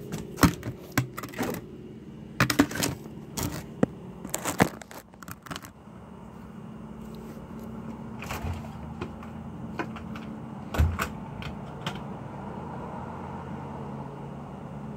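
Handling noise: a quick run of sharp clicks and knocks as the recording phone is set in place on the concrete, then a few scattered clicks. A steady low hum runs underneath.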